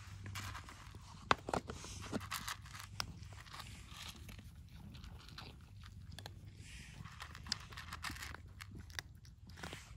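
Stray cats chewing and crunching their food, a scatter of irregular small crunches and clicks.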